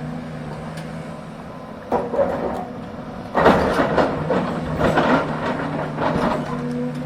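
Hidromek excavator working: its diesel engine runs steadily under load, with a short burst of rough crunching and scraping about two seconds in and a longer stretch of it from about three and a half to six and a half seconds. A hydraulic whine slides in pitch near the end.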